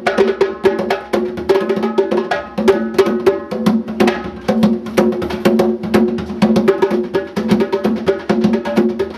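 Percussion music: a fast, steady stream of struck notes at a few repeating pitches.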